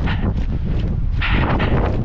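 Wind buffeting the microphone with a steady low rumble, over a runner's hard breathing in quick in-out pairs about every second and a half.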